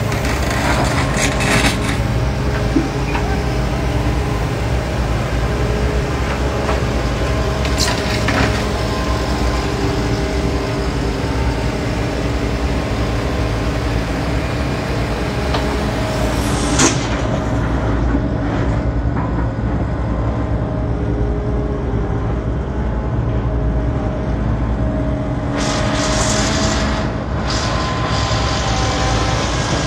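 Menzi Muck spider excavator's diesel engine running steadily under load, its note shifting now and then as the hydraulics work the legs and boom. A few brief sharp noises break in about four times.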